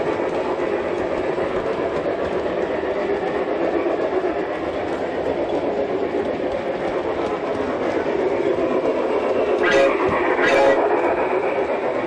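G-scale model trains running on the track: a steady rolling rumble and clatter, with the running sound of an LGB Coca-Cola steam train behind it. Two short toots about ten seconds in.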